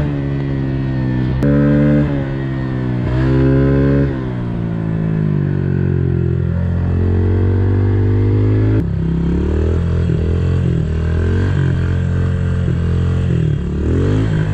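Honda CRF110F pit bike's small single-cylinder four-stroke engine on its stock exhaust, ridden at speed. The revs rise and fall a few times in the first four seconds, then wind down steadily for several seconds as the bike slows, and run lower and uneven near the end.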